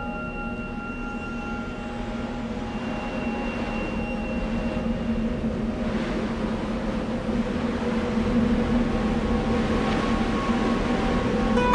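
Film soundtrack: a dark, droning score of held tones over a noisy rumble that swells steadily louder, with a new ringing chord striking in at the very end.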